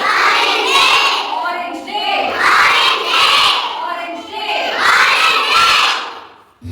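A group of young children shouting together in repeated loud swells, about one a second, fading out near the end.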